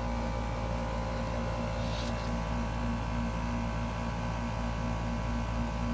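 A 3-ton central air conditioning condensing unit running: a steady machine hum with a faint, regular pulsing.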